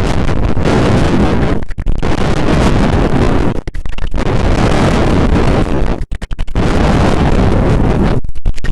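Loud, rumbling wind noise buffeting the microphone, cutting out briefly about four times.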